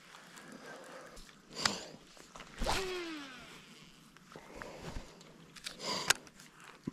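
Casting reel during a cast: a sharp click, then line running off the spinning spool as a whine that falls in pitch as the spool slows. Light handling sounds of rod and reel follow near the end.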